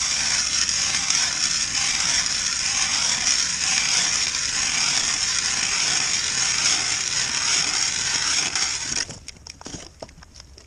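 Hand-turned 6-inch ice auger drilling a hole in lake ice: a steady grinding crunch of the blades cutting through the ice, which stops abruptly about nine seconds in, followed by a few light knocks.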